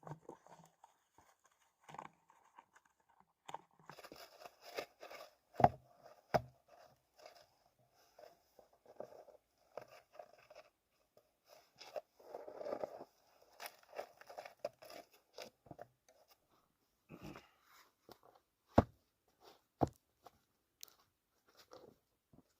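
Irregular crunching and scraping of someone working in snow, with a few sharp single knocks or snaps standing out as the loudest sounds.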